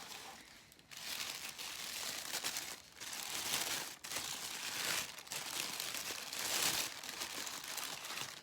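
Packaging crinkling and rustling in a run of bursts as it is handled, starting about a second in.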